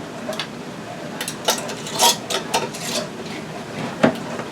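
Glass canning jars knocking and clinking as they are handled and set into a water-bath canner: a string of irregular sharp knocks, loudest about two seconds in and again near the end, over a steady hiss.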